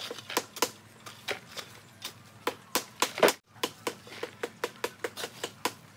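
A metal shovel digging into a heap of lumpy clay soil and loading it into a plastic bucket: a string of sharp, irregular knocks and scrapes, the loudest a little past the middle.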